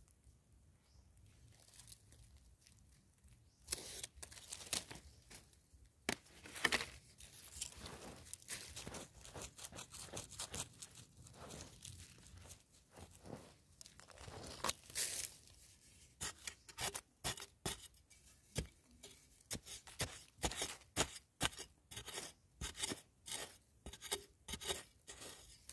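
Metal spade blade chopping and scraping into dry, crumbly soil, in separate strokes at first, then a fast run of repeated strokes over the second half.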